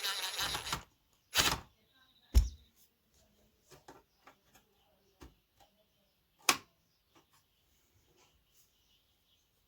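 Handling noises from taking apart an amplifier: a short rustling clatter at the start and again about a second and a half in, a loud knock about two and a half seconds in, a sharp clack about six and a half seconds in, and scattered light clicks in between.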